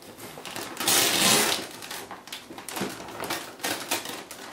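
Tissue and wrapping paper crinkling and rustling as it is pulled out of a gift bag by hand. It is loudest for about half a second about a second in, then fainter crackles follow.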